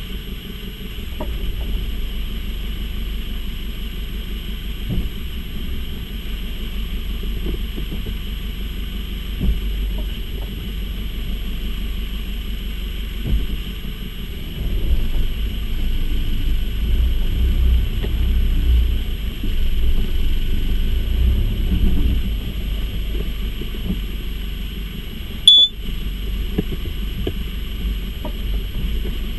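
Mercedes-Benz W201 running, a steady low rumble with scattered light knocks every few seconds and a louder stretch in the middle: the noise it makes when pulling away. About three-quarters of the way through comes one short, sharp, loud sound with a high ring.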